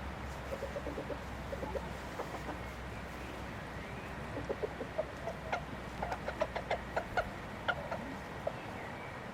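Chickens clucking: many short low clucks, scattered at first and coming thicker about halfway through.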